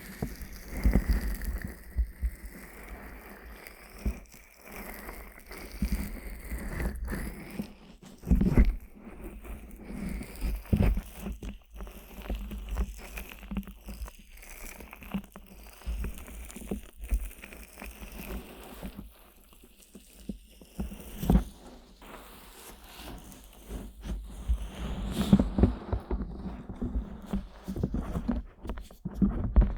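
Fingers rubbing, scratching and pressing the silicone ears of a 3Dio binaural microphone. It comes as close, irregular crackly rubbing with frequent low muffled thumps, which are loudest around eight seconds in and again near the end.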